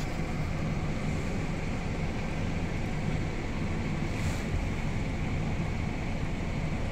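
Steady low diesel engine drone heard from inside a Valtra N143 tractor's cab, with a Hitachi Zaxis 210 LC excavator working alongside.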